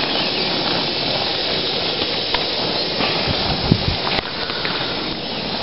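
Burning wood chunks and coals piled on a coffee-can Dutch oven lid, giving a steady hiss with a few faint pops.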